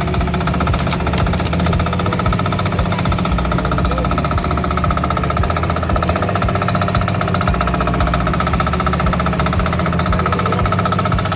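A small engine running steadily at an even speed, its rapid firing pulse unbroken.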